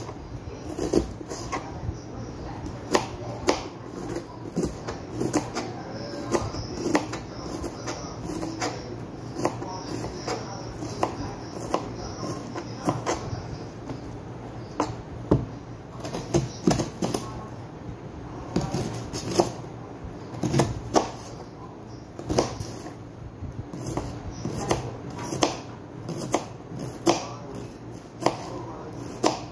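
Kitchen knife chopping onion on a cutting board: irregular knocks of the blade against the board, about one or two a second.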